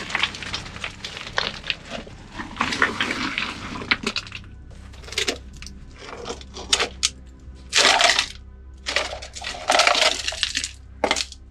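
Loose rock and rubble crunching and clattering as someone crawls over it, with a rusty metal can clinking and scraping against the stones. Dense scraping for the first few seconds, then separate bursts of clatter.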